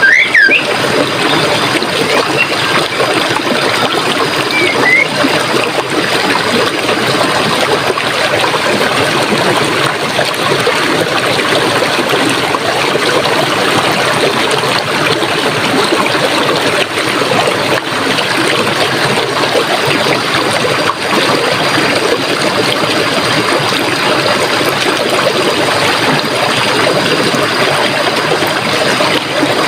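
Running stream water, a steady trickling flow, with a few short bird chirps at the start and again about five seconds in.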